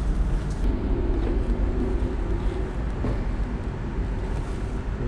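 Steady low rumble of a car ferry's engines and machinery, heard from inside the ship's passenger corridor.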